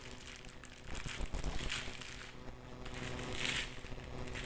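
Thin plastic courier bag crinkling and rustling as it is pulled open by hand, in two louder bouts, over a faint steady hum.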